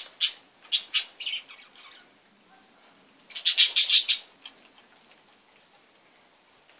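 Budgerigars chirping in two short flurries of high calls, the second about three seconds in.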